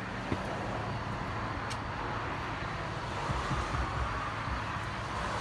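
Road traffic: a steady rumble of passing vehicles, swelling a little about three seconds in as one goes by.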